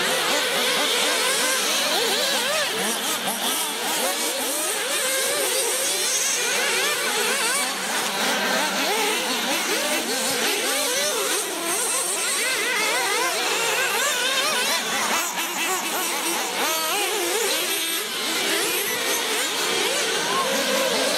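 Several nitro-powered RC cars racing together, their small two-stroke glow engines revving up and down over and over, pitches rising and falling and overlapping.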